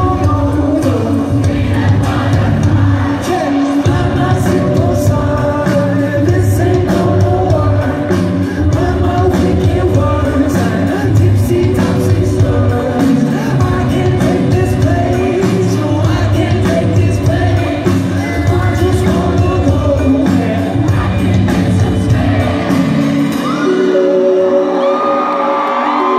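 Live band playing an indie-pop song in a large hall, heard from the audience: a singer over drums, bass and keyboards, with shouts and whoops from the crowd. About two and a half seconds before the end the drums and bass drop out, leaving held keyboard notes.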